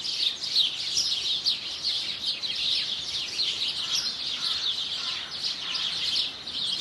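Small songbirds chirping, a dense unbroken run of quick, high, down-slurred notes.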